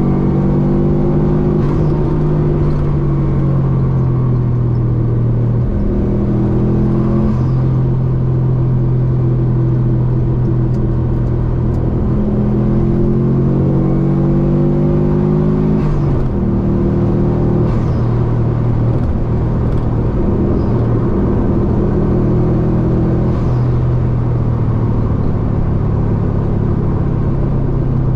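1997 Subaru Impreza WRX's turbocharged EJ20G flat-four engine running under load at road speed, heard from inside the cabin through a free-flowing exhaust with only a small downpipe silencer and a Luzian LA07B muffler. The engine note climbs steadily and drops sharply a few times.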